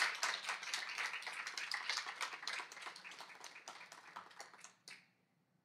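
Audience applauding, a dense patter of hand claps that thins out and stops about five seconds in.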